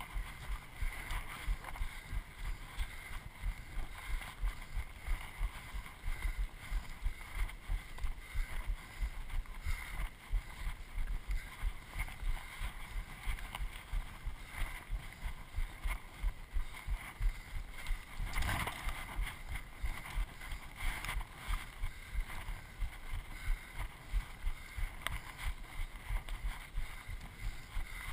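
Running footfalls thudding in a steady rhythm, about three a second, with rustling and wind on a body-worn microphone. One louder knock or brush about two thirds of the way through.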